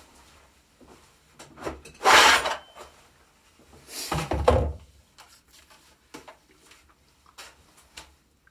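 A Stihl chainsaw and its gear being handled on a wooden workbench. There is a scrape about two seconds in, then a heavier scraping thump a couple of seconds later, followed by a few light knocks.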